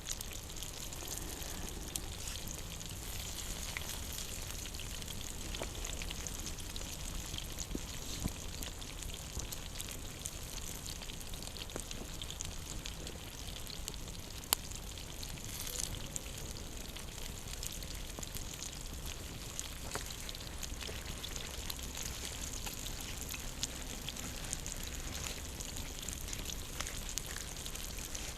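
Campfire with food cooking over it: a steady sizzling hiss with scattered crackles and pops, one sharper pop about halfway through.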